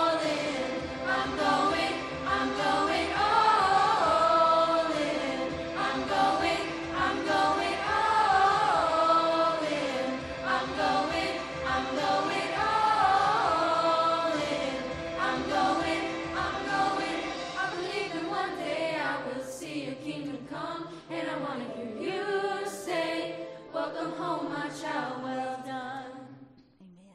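A mixed youth choir singing a slow contemporary worship song, the sound fading away near the end.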